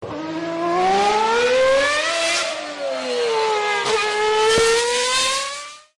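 Car engine accelerating, its pitch climbing, sagging in the middle, then climbing again before it cuts off.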